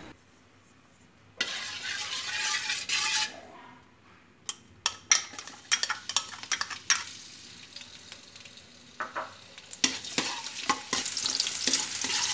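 Sliced shallots and garlic frying in hot oil in a steel wok, sizzling, while a metal spatula scrapes and clicks against the pan as they are stirred. A burst of sizzling comes about a second and a half in, then a run of sharp spatula clicks, and steady sizzling sets in near the end.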